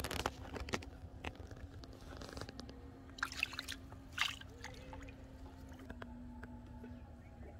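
Hands handling bamboo-tube fishing line reels and kneading bait: scattered light clicks and taps, with a few louder ones about three to four seconds in, and soft squishing, over a faint steady hum.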